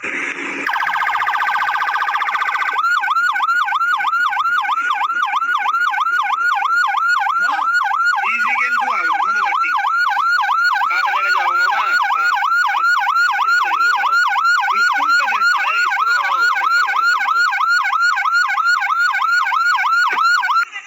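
Electronic siren sounding a fast yelp: rising sweeps about three a second, after a short, steadier burst of tone in the first couple of seconds. It cuts off abruptly near the end.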